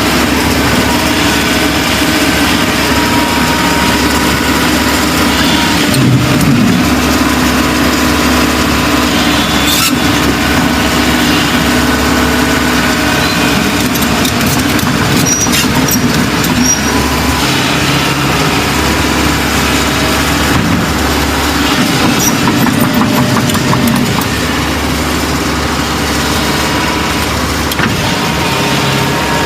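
Heavy machinery engines running steadily as an excavator loads sand into a truck, the engine note shifting up and down several times, with a few short knocks along the way.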